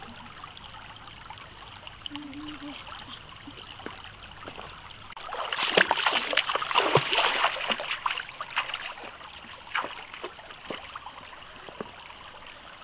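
Shallow stream trickling over rocks, with a loud burst of water splashing that starts about five seconds in and lasts around three seconds.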